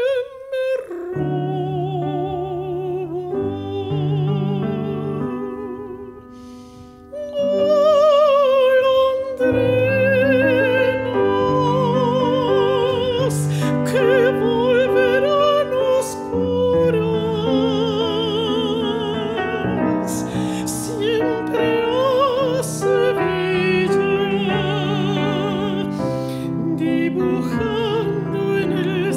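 Mezzo-soprano singing an art song with a wide vibrato over piano accompaniment. The music drops briefly quieter about six seconds in, then the voice comes back strongly.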